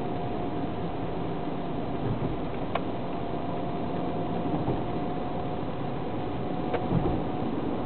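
Inside the cabin of a Citroën C5 at steady cruising speed: an even rumble of tyres, wind and engine with a faint thin steady tone, and two light clicks about three and seven seconds in.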